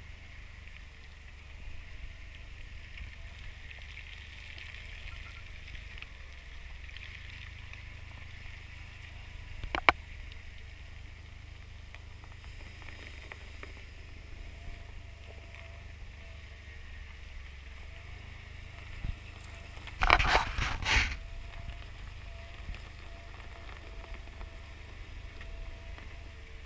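Jeep Wrangler on mud tires crawling along a snowy, muddy dirt trail, with a steady low rumble of engine and tyres. There is a single sharp knock about ten seconds in, and a burst of loud knocks and clatter about twenty seconds in.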